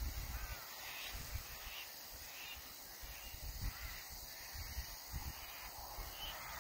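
Crow cawing several times, faint, over low rumbling on the microphone.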